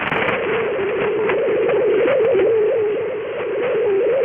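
Shortwave radio reception through an RTL-SDR receiver: a steady, slightly wavering mid-pitched tone over a bed of radio hiss and static, with no voice.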